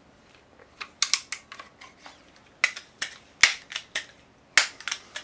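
Irregular sharp clicks and taps, several in quick clusters, from handling and loading a pellet pistol.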